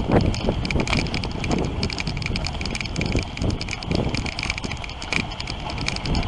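Dog sled running over a packed snow trail: runners hissing and scraping on the snow, the sled rattling with many small irregular clicks, and wind on the microphone.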